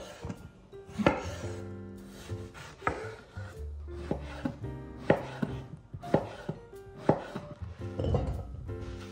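Chef's knife slicing through eggplant and knocking on a wooden cutting board, a sharp chop every second or two, over soft background music. Near the end, eggplant strips drop into a glass bowl.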